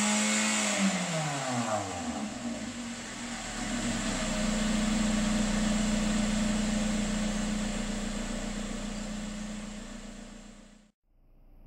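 Exhaust note of a 2016 Toyota Corolla LE's 2ZR-FE 1.8-litre four-cylinder through its factory exhaust, heard at the tailpipe. The engine is held at high revs, then the revs fall away over about two seconds and it settles to a steady idle, which fades out near the end.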